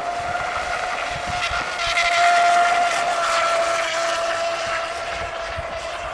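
Electric RC speedboat running at speed: a steady high-pitched motor whine over the hiss of its spray, a little louder two to three seconds in.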